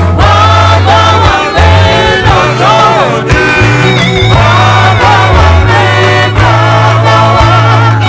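Church choir singing a Yoruba hymn through microphones, several voices together over amplified instrumental backing with a strong bass line.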